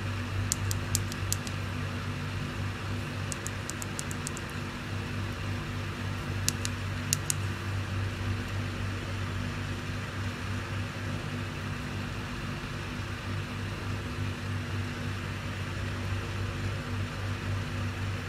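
Steady low electrical hum and room noise. Over it come small clicks from a plastic in-line remote handled between the fingers: a few clicks in quick runs in the first seven seconds.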